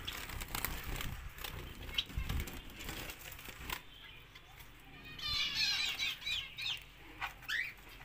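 Caged Bengalese finches fluttering in a wire cage as a hand reaches in, with scattered knocks and rattles against the mesh. About five seconds in comes a quick burst of high chirps, and a few more follow near the end.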